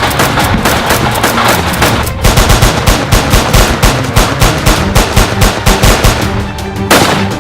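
Rapid automatic gunfire, shot after shot in quick succession, over action music with a heavy low beat.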